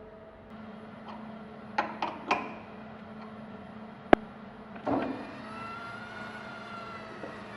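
Steady hum of a running CNC milling machine, with a few knocks of workpiece or tool handling around two seconds in and one sharp metallic click a little after four seconds.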